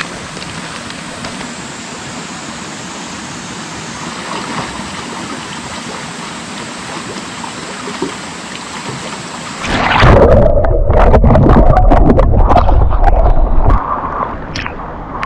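Mountain stream flowing steadily. About ten seconds in, a much louder, rough rumbling noise suddenly takes over for about five seconds.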